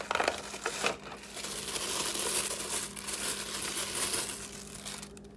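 Packaging crinkling and rustling as it is handled, with a few sharp clicks in the first second.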